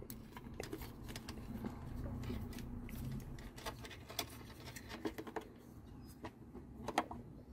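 Quiet, scattered clicks and rubbing of a plastic trim-tilt switch and its wires being handled, fed through and pressed into a rectangular opening in an outboard's lower cowling, with one sharper click near the end. The switch's clips are too big to push home, so it does not snap fully into place.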